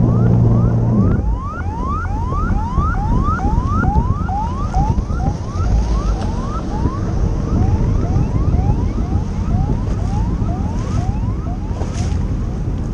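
A siren in a fast yelp, rising sweeps about three a second, growing fainter toward the end, over wind and water noise. An engine's steady hum drops away about a second in.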